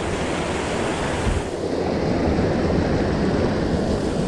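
Fast, churning white water rushing steadily through a concrete weir channel, a swollen current after rain.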